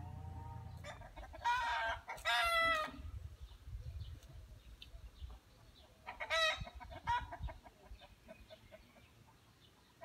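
A rooster crowing: a long crow about a second and a half in, then a shorter crow around six seconds in, followed by faint short chirps.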